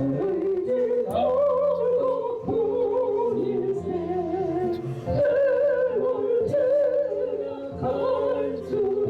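A solo voice singing a Korean praise song with strong vibrato over a backing track of held low notes, pausing between phrases about two and a half seconds and eight seconds in.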